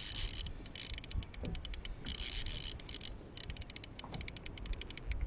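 Line-out clicker of a Shimano Calcutta round baitcasting reel ticking in fast, irregular runs as a hooked salmon pulls line off the reel.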